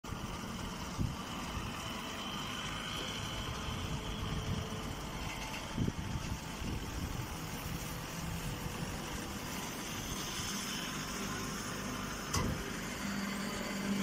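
Vertical straw baler running: a steady mechanical drone from its motor and hydraulics, with a few short knocks, and a steady low hum coming in near the end.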